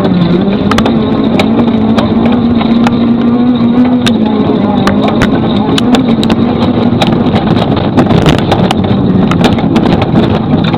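Rally car engine running hard at steady high revs on a gravel stage, with frequent sharp clicks of gravel striking the car.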